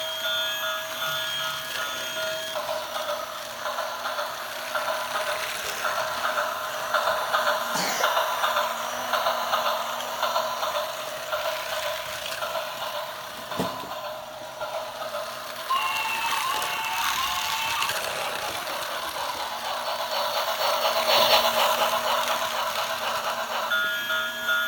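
Toy steam train running, its motor and wheels giving a continuous rattle, with a few sharp clicks and steady electronic tones near the start and end.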